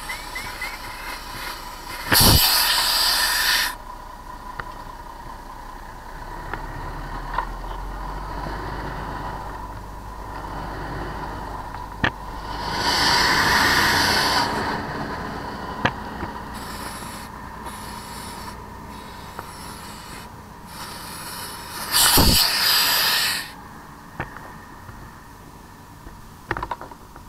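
Steady mechanical running with a constant high whine, typical of fire apparatus at a working fire scene. Three loud hissing rushes, each about a second and a half long, break in near the start, about halfway through and near the end, with a few sharp clicks in between.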